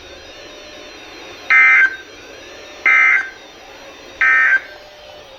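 NOAA Weather Radio EAS end-of-message (EOM) tones: three short digital SAME data bursts, each about a third of a second, spaced about a second and a half apart, over faint radio hiss. They signal the end of the alert message.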